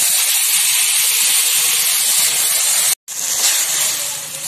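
Water hitting a hot wok of fried vegetables, hissing loudly as it flashes to steam. About three seconds in the sound cuts off abruptly, then comes back as a softer simmering hiss.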